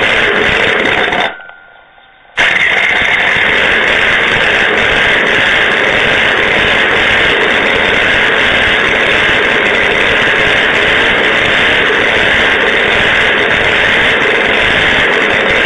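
Scratch-built 180cc miniature V8 engine running steadily and loudly, a dense, even noise with no clear pitch. A little over a second in, the sound sinks away for about a second, then comes back abruptly at full level.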